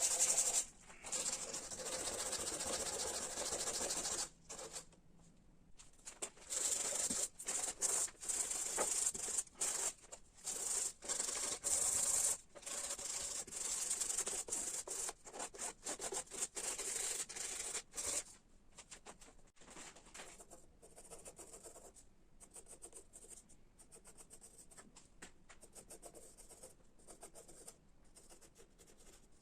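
Hand sanding of carved ash wood: rubbing strokes in bursts of about a second, stopping and starting, turning to fainter, lighter scratching about eighteen seconds in.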